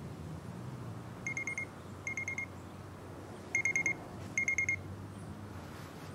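Samsung Gear S3 frontier smartwatch alarm going off: four short bursts of rapid high beeps, each burst a quick run of about four pips, coming in two pairs starting about a second in.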